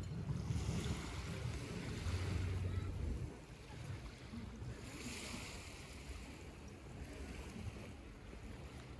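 Waterfront ambience: a low rumble of wind buffeting the microphone for the first three seconds, then a softer steady wash of small waves on a pebble shore.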